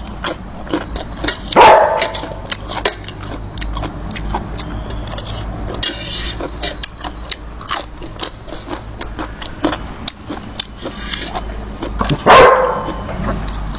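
A dog barking twice, about ten seconds apart, over scattered small clicks.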